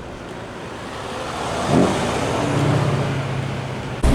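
Street traffic with a car engine running, a low steady engine note coming in about halfway through after a brief louder swell.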